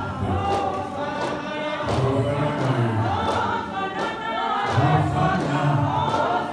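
Church congregation singing a hymn together, many voices over a strong low line, with sharp knocks at intervals.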